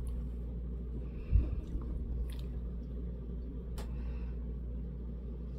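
Quiet room tone: a steady low hum, a soft low bump about a second and a half in, and a few faint clicks, as of small objects being handled.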